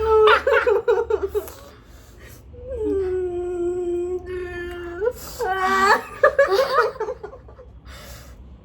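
A woman whimpering and laughing, with one long drawn-out moaning cry in the middle, in reaction to the burn of extremely spicy Buldak noodles.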